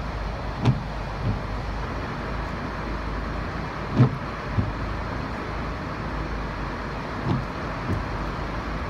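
Windshield wipers on intermittent, each sweep giving a pair of soft thumps about every three seconds across a rain-spotted windshield. Under them runs the steady low rumble of the stopped car, heard from inside the cabin.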